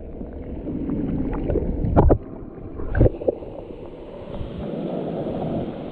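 Rushing water of a mountain stream and waterfall with wind buffeting the microphone, broken by two sharp thumps about two and three seconds in.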